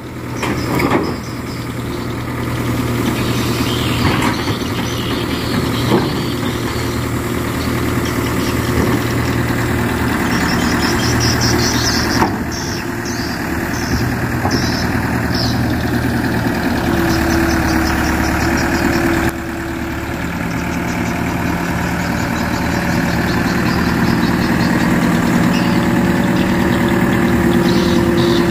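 Sumitomo S265 F2 crawler excavator's diesel engine running steadily while it works, its note shifting with hydraulic load. A few sharp clanks come in the first twelve seconds, and a steady higher whine joins in past the middle.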